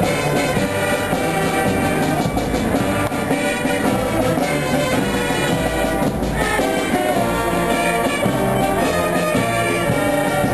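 Music with a steady drum beat under a melody.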